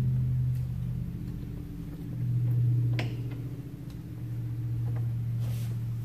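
Bolts being started by hand into a Ural sidecar motorcycle's rear wheel hub: a few light metallic clicks, the sharpest about halfway through, over a steady low hum.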